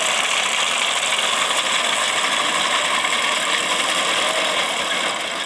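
Horse-drawn reaper-binder working through standing wheat: its cutting and binding mechanism gives a rapid, steady mechanical clatter. The clatter drops away near the end.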